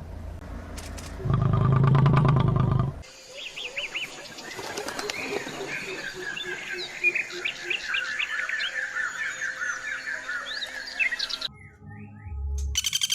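A loud low pulsing sound cuts off about three seconds in, and then many birds chirp and call together, with quick high rising and falling notes.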